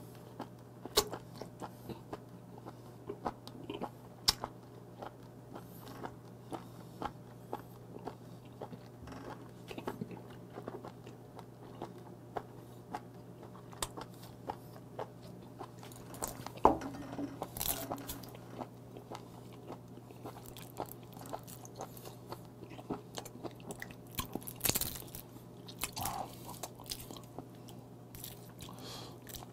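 Close-miked chewing of raw live small octopus: irregular wet clicks and bites from the mouth, several a second with a few louder ones, over a faint steady low hum.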